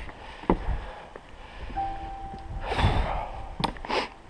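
Footsteps knocking on wooden boardwalk planks, with a hiker's breathing close by and one loud breath about two-thirds of the way through.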